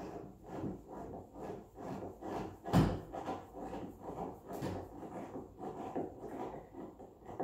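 Hand screwdriver turning screws into a wooden table top, short turning strokes about three a second, with one sharper knock about three seconds in.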